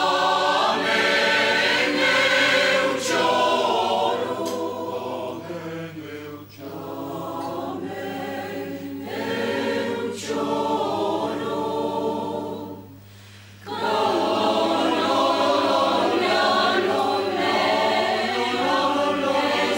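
Mixed choir of men's and women's voices singing together. The singing falls away briefly about two-thirds of the way through, then the next phrase comes in loud.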